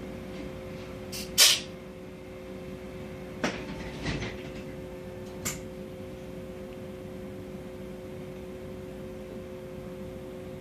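A steady two-note hum around a standing Mercedes-Benz Citaro C2 city bus, broken by a few sharp knocks and clacks: a loud one about a second and a half in, then three smaller ones over the next four seconds.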